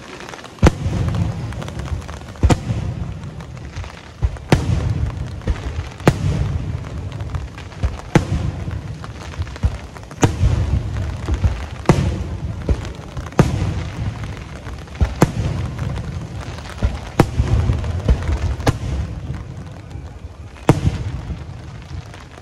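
Aerial firework shells bursting one after another, a sharp bang about every one and a half to two seconds, each followed by a low rumble.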